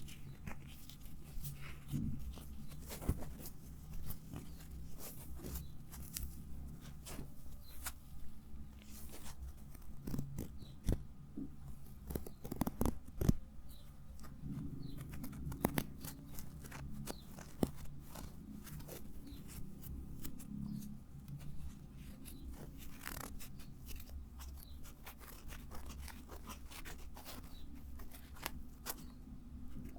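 Close-miked ASMR trigger sounds made by hand: an irregular run of small clicks, snips and crackles over a steady low hum, with a few louder clicks a little after halfway.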